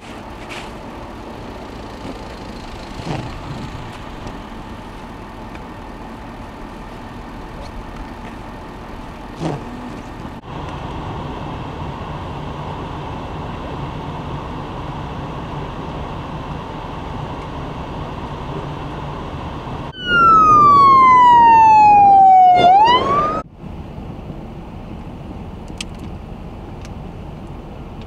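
A siren wailing loudly for about three and a half seconds, its pitch sliding steadily down and then sweeping sharply back up before it cuts off. Before it there is only a steady rumble and hiss.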